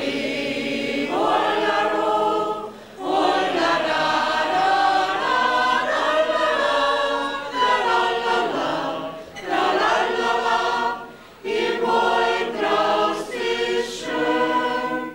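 Mixed amateur choir of women's and men's voices singing together, in phrases broken by short breaths.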